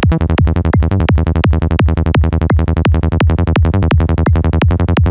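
A fast electronic loop at 170 BPM: a kick drum on each beat with a rolling Sylenth1 synth bass patch of short repeated notes, run through FabFilter Saturn saturation. The sub end below about 43 Hz is being cut.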